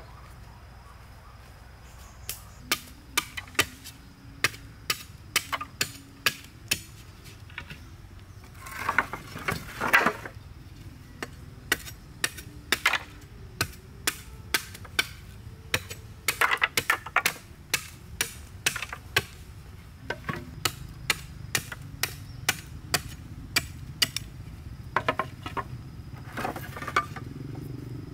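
A knife blade chopping into an upright bamboo tube on a wooden stump, splitting it: a steady run of sharp knocks about one or two a second, with a few louder flurries of quick strikes about a third of the way in, around the middle and near the end.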